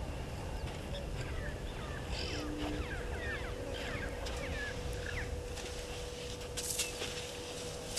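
Small birds calling at a waterhole: a run of quick, high chirps and whistles, busiest through the middle, over a steady low rumble, with a faint steady hum.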